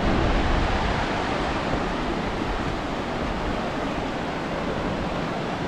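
Merced River rushing: a steady, even rush of fast-flowing whitewater.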